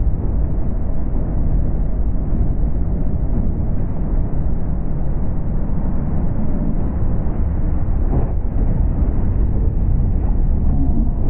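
A 14 ft jon boat running fast under its 25 hp Mercury tiller outboard: a steady, loud rush of engine, wind and water spraying off the hull, with no let-up.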